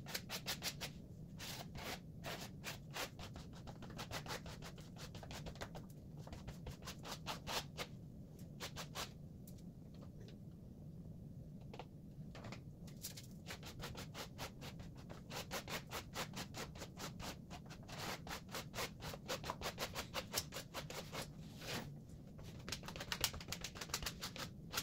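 Plastic gift card scraping Mod Podge across the surface of an assembled cardboard jigsaw puzzle in quick back-and-forth strokes, several a second with short pauses, working the glue into the gaps between the pieces. A steady low hum runs underneath.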